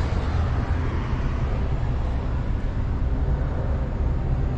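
A vehicle engine running steadily, a constant low rumble without change.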